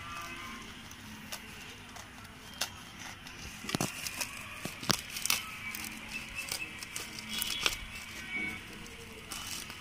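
Plastic courier mailer crackling and tearing as fingers pull its sealed end open, in irregular sharp crackles that are busiest from about three to eight seconds in. Faint background music runs underneath.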